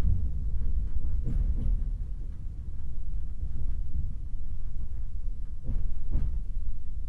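Inside a JR 189 series EMU motor car (MoHa 188, MT54 DC traction motors) running on the line: a steady low rumble from wheels and bogies, with wheels clicking over rail joints twice in quick pairs.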